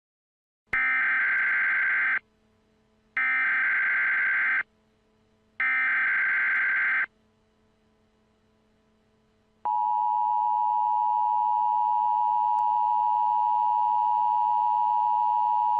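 Emergency Alert System broadcast tones: three bursts of the SAME digital header, each about a second and a half long with short gaps between them. About ten seconds in comes the steady two-tone EAS attention signal (853 and 960 Hz), which holds on.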